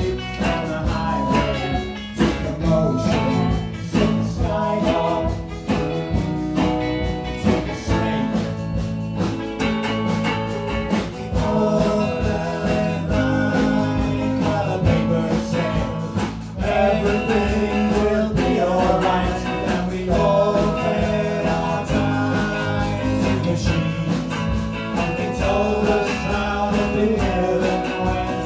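A live indie rock band playing a song: strummed guitars, bass and drums, with a sung vocal line over them.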